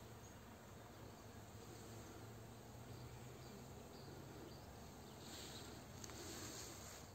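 Faint, steady buzzing of honeybees foraging in flowering rapeseed, over a soft hiss that grows a little louder near the end.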